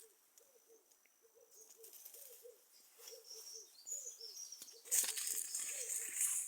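A bird calling a steady run of short, low hooting notes, about two a second. About five seconds in, a louder rustling noise comes in over it.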